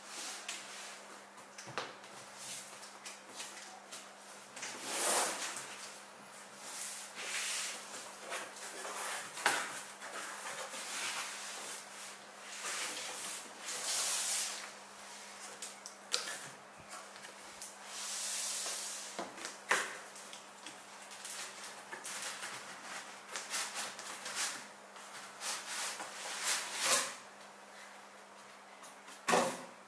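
Cardboard packaging being handled: a large cardboard box is slid open and its inner flaps pulled out, giving irregular rustles and scraping swishes, with a few sharp knocks of cardboard.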